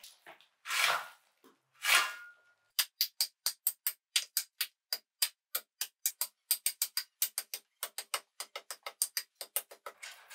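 Two shovelfuls of gravel and rubble tipped into a hole, then a steel pipe tamping the rubble fill around a wooden post: a quick run of sharp metallic clacks, about six a second, that stops just before the end.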